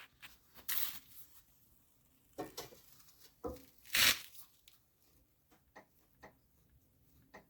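Scattered rustling and scraping handling noises from moving the camera and pry bar under the van, with one louder scrape about four seconds in and a few faint clicks after it. No clunk is heard from the sway bar bushing on this side.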